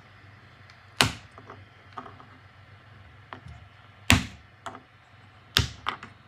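3D-printed plastic crankshaft parts clacking against a textured metal print bed as they are snapped loose and handled: a few sharp, separate knocks, the loudest about a second in and about four seconds in, with two more closer together near the end.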